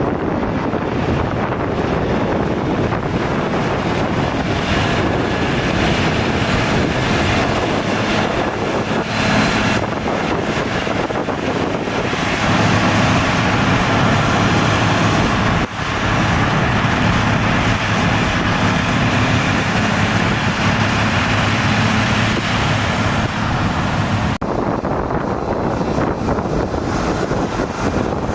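Engines of heavy earthmoving machines running, mixed with wind buffeting the microphone. A steadier engine hum stands out in the middle and ends abruptly near the end.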